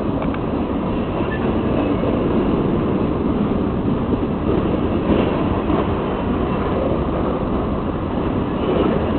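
A grain train's freight cars rolling past on the rails, a steady rumble of wheels on track with faint clicks.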